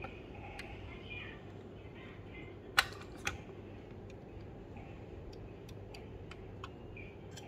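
Handling noise: a sharp click a little under three seconds in, a softer one half a second later, then scattered light ticks, over a steady low hum.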